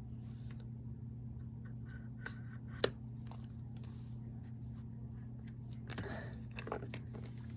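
Small clicks and rubbing of metal spinning-reel parts being handled as the greased shaft of a Penn Spinfisher 5500 is worked into the reel body, with one sharp click about three seconds in and a short rustle near the end, over a steady low hum.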